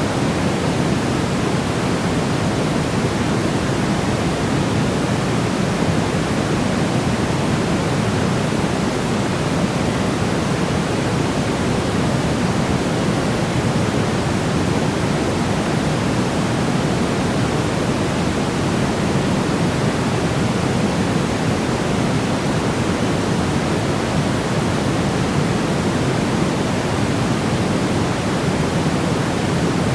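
Steady white noise: a constant, even rushing hiss, heavier in the low end than in the highs, with no change.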